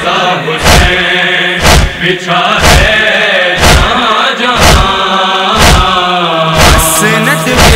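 Voices chanting a noha lament, kept in time by a steady beat of hands striking chests (matam), about one strike a second.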